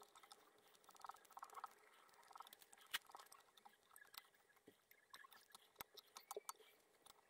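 Faint scattered ticks and light scratching from hands winding tying thread with a spring bobbin holder around a hook held in a rotary fly-tying vise, with one slightly louder click about three seconds in.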